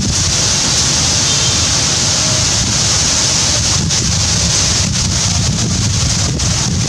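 Airplane passing overhead: a loud, steady rushing roar with a hiss on top.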